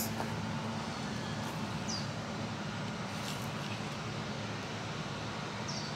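Steady outdoor background rumble, with a short high chirp from a bird twice, about two seconds in and near the end.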